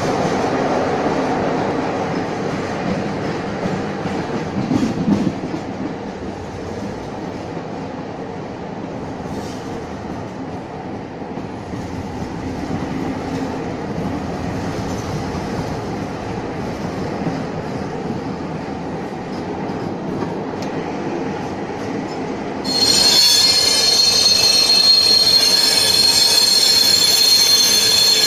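Croatian Railways passenger train running, heard from inside a carriage: a steady low rumble of wheels on the track. About 23 seconds in, a loud, high-pitched squeal of steel wheels on the rails sets in and keeps going.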